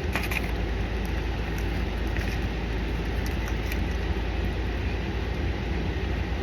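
Steady low rumble of a car's engine idling, heard from inside the parked car's cabin, with a few faint clicks near the start and about three and a half seconds in.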